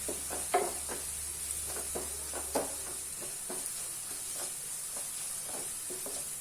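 Sliced onion and green chillies sizzling in hot coconut oil in a pan, with a spoon scraping and tapping against the pan as they are stirred; two louder knocks come about half a second and two and a half seconds in.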